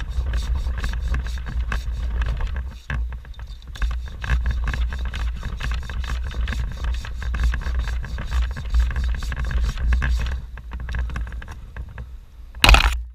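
Hand pruning saw cutting through wood in rapid, even strokes, about five a second, over a steady low rumble. It pauses briefly about three seconds in and stops about ten seconds in, with one loud sharp knock near the end.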